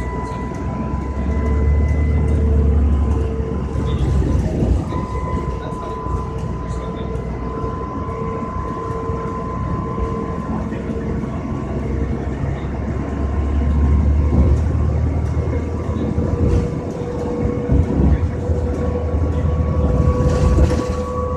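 New Flyer DE40LFR diesel-electric hybrid bus running at speed: a steady high whine from its electric drive over a low engine and road rumble.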